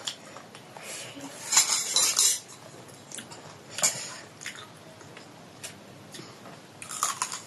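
Eating utensils clinking and scraping against a dish. A burst of scraping comes about one and a half seconds in, a few single clicks follow, and another short burst comes near the end.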